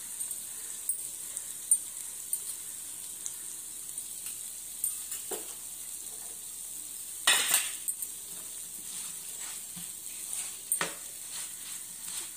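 Steel spoon scraping and stirring in a non-stick pan over a steady faint hiss, mixing spooned-in chili, fenugreek and mustard powders into fried gongura and spinach for pachadi. It begins with only scattered small clicks. A louder scrape comes about halfway through, and quick repeated scraping strokes follow toward the end.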